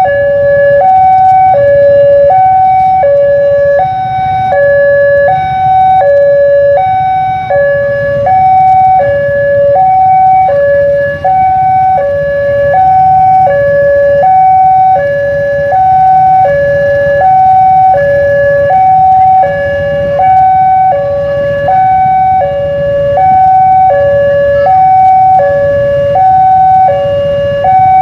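Indonesian railway level-crossing alarm sounding: an electronic two-tone signal alternating steadily between a higher and a lower tone, about one high-low pair a second, warning that a train is approaching the crossing.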